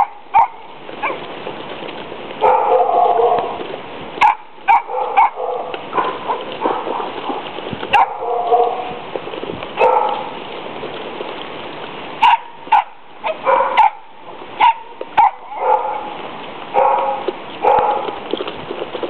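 Terrier puppies yipping and barking in many short, high-pitched bursts, with some whimpering, excited at feeding time. A few sharp clicks come in between.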